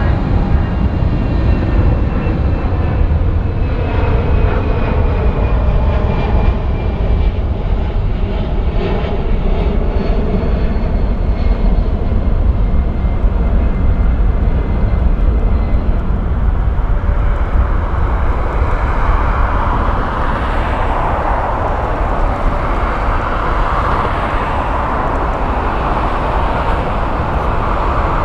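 Boeing 787's turbofan engines running at low thrust with a thin whine as the airliner taxis onto the runway. About two-thirds of the way in they spool up to takeoff thrust, and the whine gives way to a broad, steady rushing sound over a low rumble.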